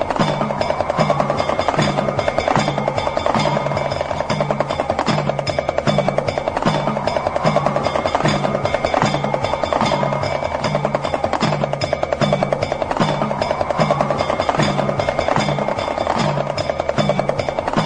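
Meditation music built on a damru, the small two-headed hand drum, rattling in a rapid continuous stream of strikes over a low pulsing tone, with a rising swell about every three seconds.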